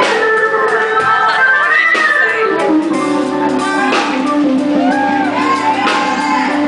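Live blues band playing, with an electric guitar lead bending notes over drums and cymbal crashes near the start, about four seconds in and again a couple of seconds later.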